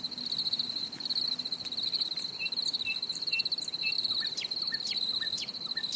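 Crickets chirping in a steady, fast-pulsing trill, an evening outdoor ambience. A few short, higher chirps come in about halfway through, and brief falling chirps follow near the end.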